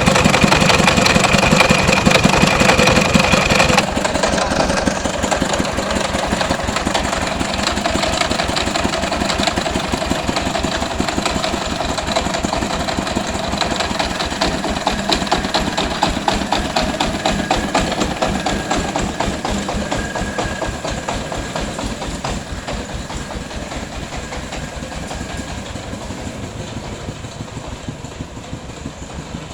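Engine of a three-wheeled mobile rice-milling machine running with a steady, rapid beat. A high whine and part of the noise cut off about four seconds in, after which the engine sound slowly grows fainter.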